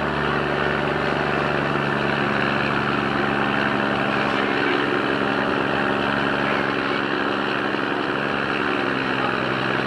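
River barge's engine running steadily alongside a cargo ship: a constant low hum of several steady tones under a wide wash of noise.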